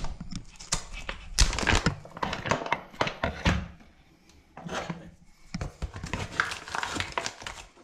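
Foil pouch crinkling and rustling as it is handled and opened by hand, in two stretches with a short pause between, with a couple of sharp knocks near the start.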